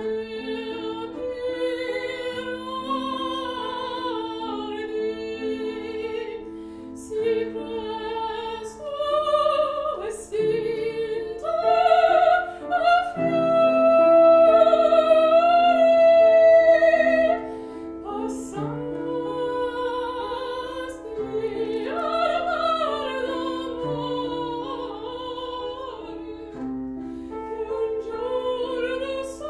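Operatic soprano singing an aria with wide vibrato over piano accompaniment. About halfway through she holds one long high note, the loudest passage.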